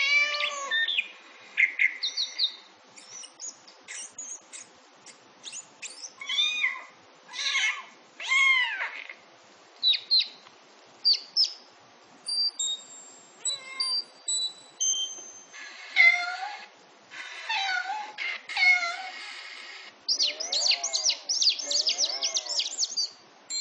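A string of short animal calls: rising and falling meow-like cries, chirps and squeaks, with a few held high whistles about halfway through and a quick run of high chirps near the end.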